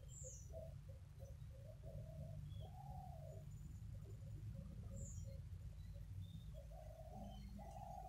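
Faint bird calls: a run of short, low notes, a longer low call about three seconds in and two more near the end, and a few short high chirps, over a low steady rumble.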